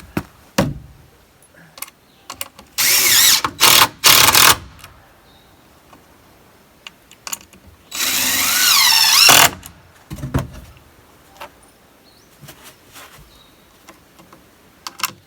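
Cordless drill driving screws into wood: three short runs about three seconds in, then one longer run about eight seconds in whose pitch wavers as the screw bites. Small knocks and handling sounds fall between the runs.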